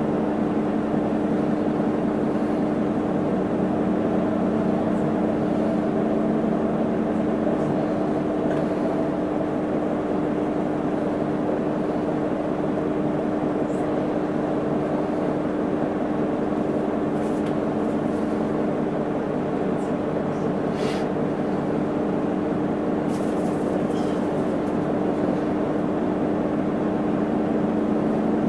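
Isuzu Erga city bus heard from inside the cabin: the diesel engine gives a steady drone whose pitch does not change. A few faint clicks come about two-thirds of the way through.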